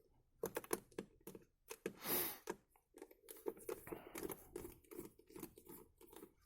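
Faint small clicks, rattles and scrapes of screws and a plastic power strip housing being handled and unscrewed, with a short rasping scrape about two seconds in.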